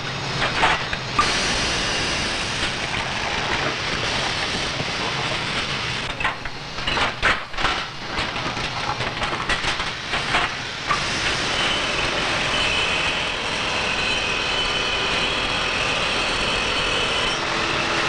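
Stereotype plate-casting machine running as it casts curved lead printing plates: a loud, dense mechanical din with metallic clanks about a second in, between six and eight seconds and near eleven seconds, then a steadier run with a higher hiss.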